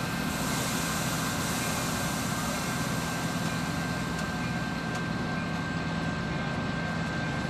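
Metra diesel commuter train standing at the platform, its locomotive running with a steady low drone and a thin, steady high whine.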